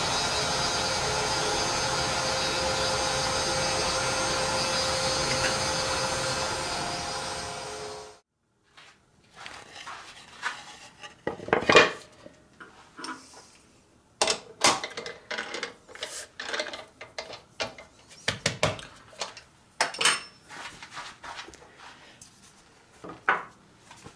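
A steady motor hum fades and cuts out about eight seconds in. After that come scattered knocks, taps and rubbing of wood and tools being handled at a bench, loudest around a dozen and twenty seconds in.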